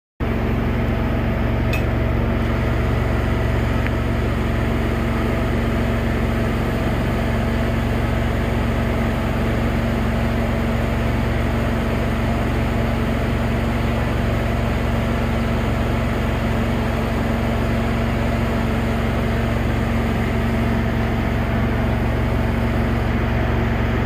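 Engine-driven welder-generator running at a constant speed, giving a steady, unchanging mechanical hum with a low drone.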